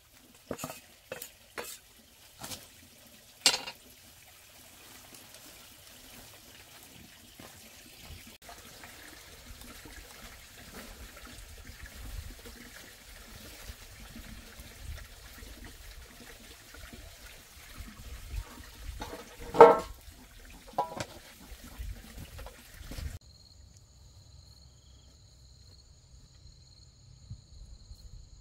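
A knife chopping greens, a few quick strokes at the start. Then a wood fire burning under a large cooking pot as chopped greens are tipped in, with one loud knock about two-thirds of the way through. Near the end this cuts off abruptly to insects singing with a steady high tone.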